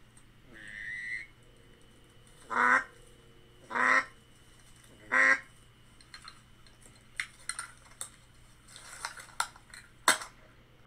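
Three loud duck quacks, evenly spaced about a second and a quarter apart, followed by scattered light clicks.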